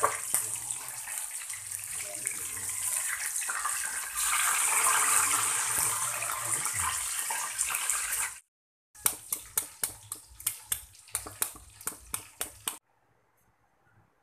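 Pork leg deep-frying in a wok of hot oil: a steady sizzling hiss that gets louder about four seconds in. After a brief break, a run of sharp crackles, about three or four a second, stops suddenly.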